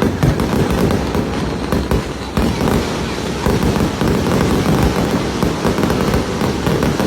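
Fireworks display going off: a dense, continuous barrage of bangs with no pause.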